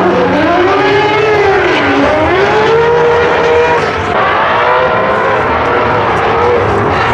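Drift cars' engines running at high revs. The pitch swings up and down as the throttle is worked through the drift, and more than one engine is heard at once.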